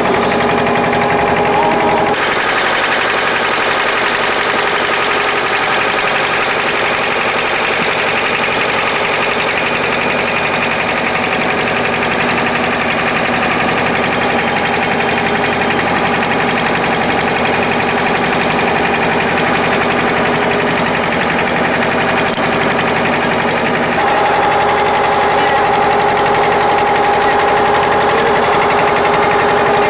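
An engine running steadily: a loud, continuous drone with a steady pitched hum. Its character changes abruptly about two seconds in and again near the end.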